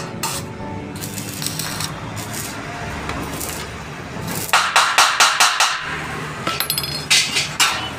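Stick-welding arc crackling in a short burst of about a second, tack-welding a joint on a stainless steel gate frame. A few sharp clicks follow near the end.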